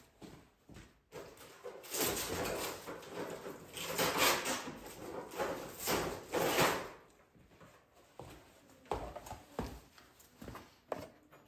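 Objects being rummaged through and handled: scraping, rustling and clattering for several seconds, loudest about halfway through, then a few scattered knocks near the end.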